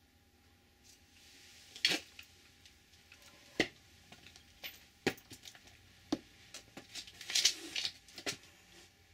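Scattered small clicks, taps and rustles of a person handling things and moving about, spaced irregularly, with a short flurry of them near the end.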